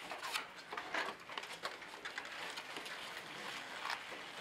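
Scattered light taps, clicks and rustles of foam clamshell takeout boxes, plastic forks and paper being handled at a table.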